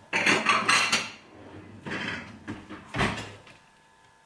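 Kitchen crockery clattering as a small ceramic plate is fetched and handled: a rattle of dishes in the first second, then a single sharp knock about three seconds in.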